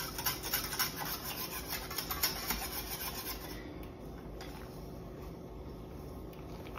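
Wire whisk stirring and scraping around a stainless steel saucepan of simmering milk, whisking in melting chocolate and cocoa powder. Quick, repeated scraping strokes that turn softer after about three and a half seconds.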